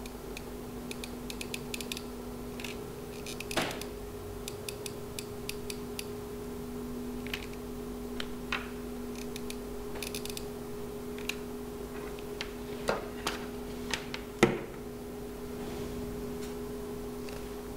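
Scattered light clicks and creaks as a hot glue gun's trigger is squeezed and a paper-plate cardboard cone is pressed and handled, with a few louder clicks, over a steady low hum.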